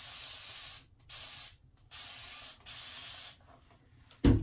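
Spray bottle misting warm water onto hair in four short hissing sprays, each about half a second to a second long with brief gaps between them. Near the end comes a single sharp thump, the loudest sound.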